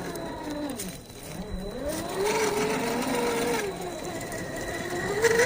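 MST CFX-W RC crawler's 550 brushed electric motor and gear drive whining. The pitch rises and falls with the throttle, drops low about a second in, then climbs again.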